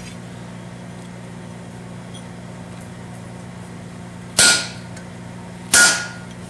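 Two hammer blows on a rectangular hot punch driving a nail hole into a red-hot 3/8-inch rod horseshoe on an anvil, about a second and a half apart. Each blow is a sharp metallic strike with a short ring.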